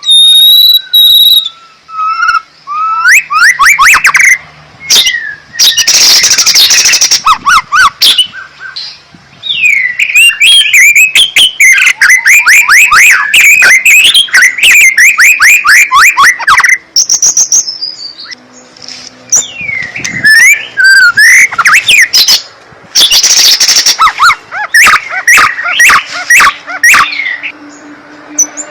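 A songbird singing loudly and close up, a varied full song: clear whistles mixed with long, fast runs of repeated chirps and trills, in phrases separated by short pauses.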